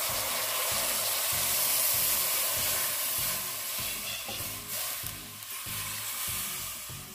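Cold water poured from a saucepan into a hot aluminium pressure cooker, sizzling hard as it hits the seared beef and pan juices. The sizzle dies down over the last couple of seconds as the pan cools.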